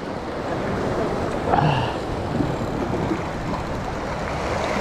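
Small waves washing over a rocky shoreline, with wind buffeting the microphone as a steady rushing noise.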